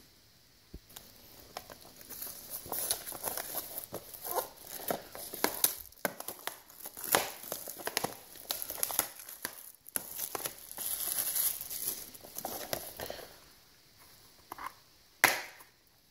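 Plastic shrink wrap being torn and crumpled off a Blu-ray case, an irregular crinkling and crackling. A single sharp click near the end as the plastic case is snapped open.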